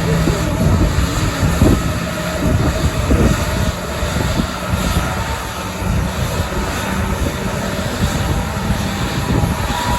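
Airbus A321neo's Pratt & Whitney PW1100G geared turbofan engines running, a loud, dense, steady rumble with faint steady whining tones.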